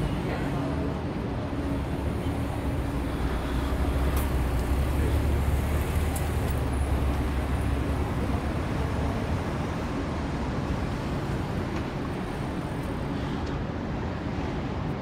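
City street traffic noise: a steady hum of passing vehicles, with a low engine rumble that swells a few seconds in and eases off again.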